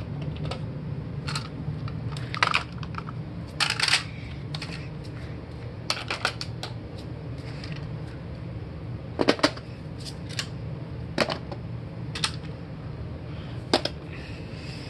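Plastic toys being handled and set into a plastic playset: scattered light clicks and knocks, a few sharper ones, over a steady low hum.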